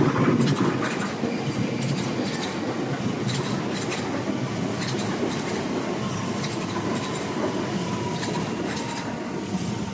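A JR West train running past a level crossing, with steady wheel and rail rumble and clicks as the wheels pass over rail joints.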